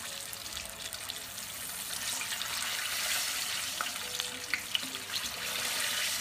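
Battered cempedak (a small jackfruit) fritters deep frying in hot oil: a steady bubbling sizzle, with a few sharp ticks about four to five seconds in.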